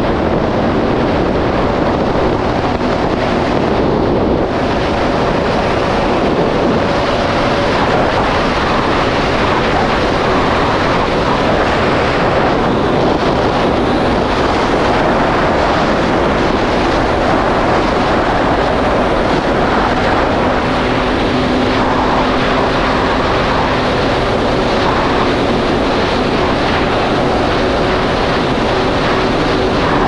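Yamaha GP1800R SVHO jet ski's supercharged 1.8-litre four-cylinder engine running steadily under way at speed, with the rush of water and wind.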